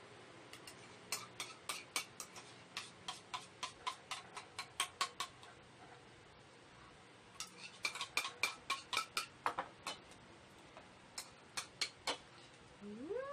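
Metal spoons clinking and scraping against bowls as ice cream is eaten: quick runs of clicks about four a second, with a pause in the middle. A cat meows once, rising then falling, right at the end.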